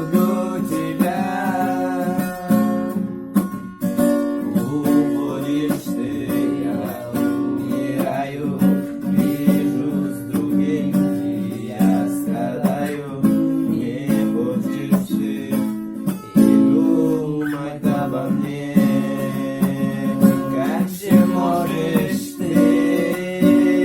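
Acoustic guitar playing a song melody over plucked and strummed chords.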